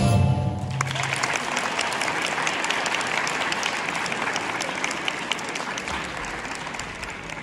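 Audience applauding as the dance music ends. The last notes die away in the first second, then the clapping slowly fades.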